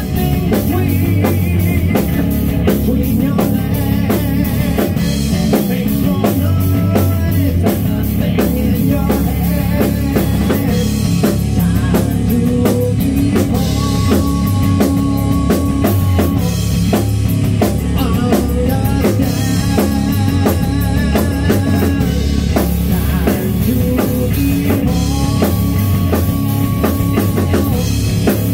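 A rock band playing live: drum kit keeping a steady beat with kick and snare, under electric guitar and electric bass.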